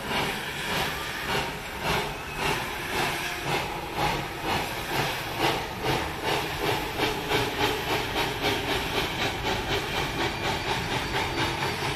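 Steam locomotive working away with rhythmic exhaust chuffs over a steady hiss of steam. The beats quicken from about two to about three a second as it gathers speed.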